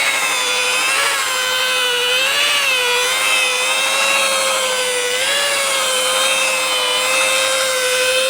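Small power-tool motor running a polishing pad to work compound into car paint, a steady whine whose pitch dips and recovers slightly as the pad is pressed and moved over the panel.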